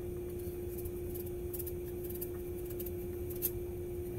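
A knife peeling the skin off a pumpkin: a few faint short scrapes at irregular intervals, over a steady low hum.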